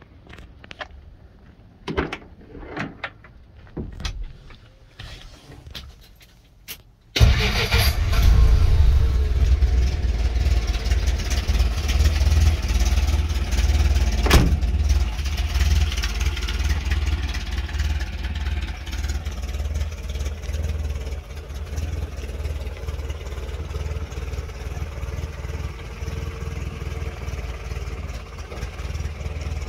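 A few knocks and clicks, then the 1953 Willys pickup's engine starts abruptly about seven seconds in and runs with a deep, steady rumble, settling to a somewhat quieter idle after about twenty seconds. One sharp click about halfway through.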